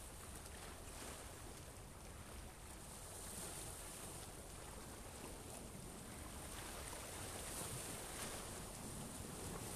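Sea ambience: waves washing steadily with wind on the microphone, a faint, even rush with no distinct events.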